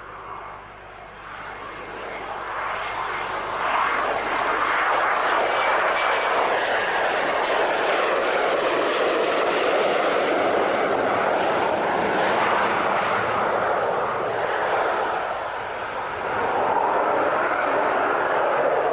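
de Havilland Sea Vixen's twin Rolls-Royce Avon turbojets on a low pass with the undercarriage down. The jet noise builds over the first few seconds, with a high whine on top, then holds steady and loud. It dips briefly near the end and swells again as the jet climbs away.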